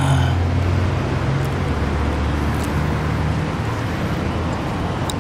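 A motor vehicle engine running with a steady low hum, with a few faint clicks over it.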